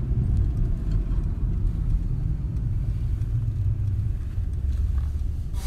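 Steady low road rumble of a car driving along, heard from inside the cabin.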